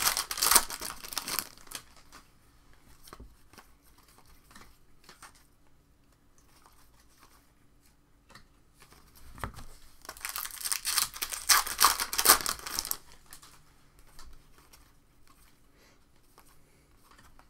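Trading-card pack wrappers being torn open and crinkled: one burst of tearing and crinkling in the first second or so and another about ten seconds in, with faint rustles and clicks of cards being handled between.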